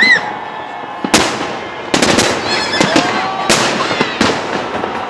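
Fireworks salute going off: a run of about five sharp bangs, with short whistling tones between them around the middle.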